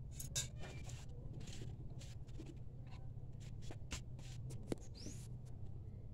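Scattered light clicks and taps as chopsticks and tableware are handled on a bamboo table, over a low steady hum. A single short rising bird chirp comes about five seconds in.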